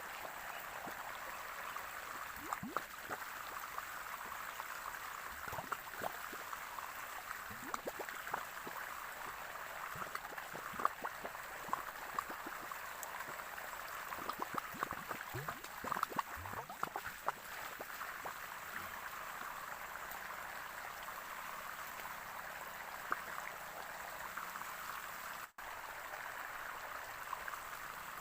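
Running water flowing and splashing steadily, with many small irregular plinks and gurgles.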